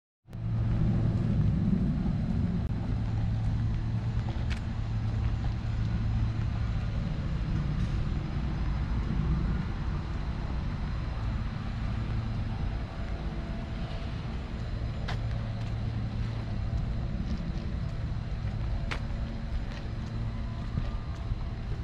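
Steady low hum and rumble of outdoor background noise, with a few faint ticks.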